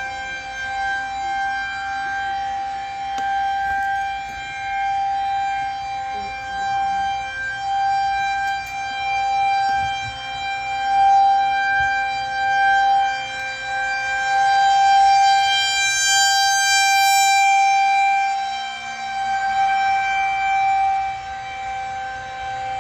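Federal Signal 2001-130 rotating outdoor warning siren sounding a tornado warning. It holds one steady pitch while its loudness swells and fades as it turns.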